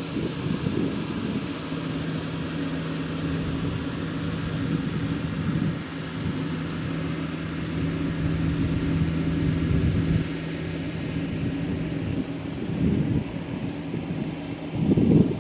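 Single-cylinder diesel engine of a Kubota two-wheel walking tractor running steadily under load as it hauls a trailer of rice sacks up a dirt slope, with a low rumble and a steady hum.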